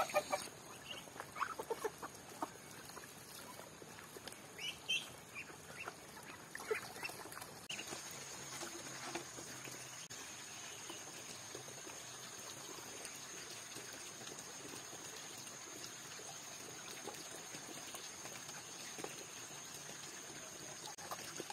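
Chickens clucking in short separate calls among feeding Muscovy ducks for the first several seconds. After that it goes quieter, with an even background and a steady high hum.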